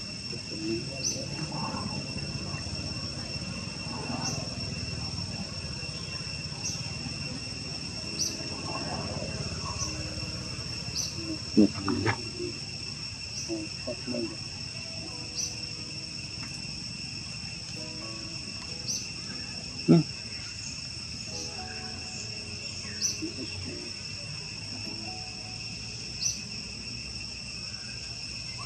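Steady high-pitched insect chorus of crickets or cicadas, with a faint regular pulse about every two seconds. Two sharp clicks or knocks stand out, one about twelve seconds in and one about twenty seconds in.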